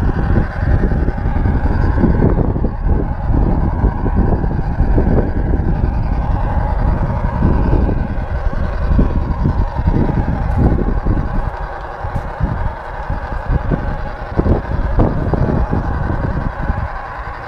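A garden-railway car rolling along the track, heard from on board: a steady low rumble with irregular clatter from the wheels and rail joints, and a steady whine above it.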